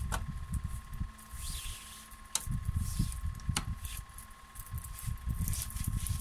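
Cotton fabric strip rustling and rubbing as a freshly turned fabric tube is pulled and handled across a tabletop, with irregular low dull bumps and three sharp clicks. A faint steady high hum runs underneath.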